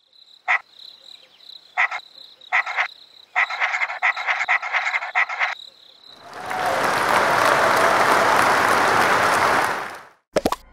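A frog croaking in short calls over a steady high insect trill. The croaks come as separate bursts at first, then run together in a rapid pulsing series for about two seconds. About six and a half seconds in, a broad, steady rush of noise lasts about three and a half seconds and then cuts off.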